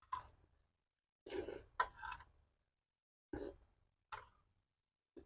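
Close-miked mouth sounds of a person eating, chewing and smacking on food in about five short bursts with dead silence between them.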